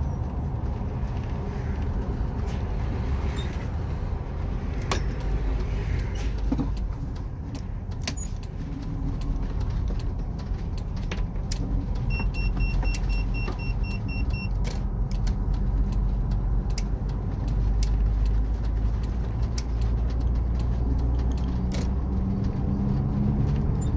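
Converted bus motorhome driving, heard from inside the cab: a steady low engine and road drone, with scattered light rattles and clicks. About halfway through, a quick run of short electronic beeps, roughly three a second, lasts a couple of seconds.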